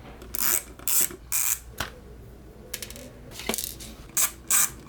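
Screwdriver bit working at the recessed back-case screws of a TI-84 calculator, in short scraping, clicking strokes about two or three a second, in two spells with a pause between. The bit is too short to seat properly in the deep screw holes.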